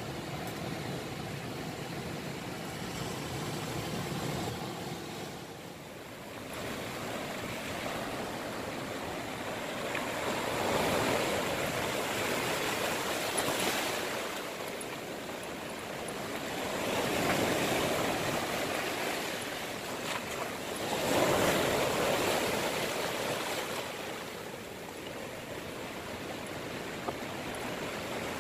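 Sea waves breaking and washing in over a rocky, boulder-strewn shore, rising and falling in swells, with the biggest surges in the second half.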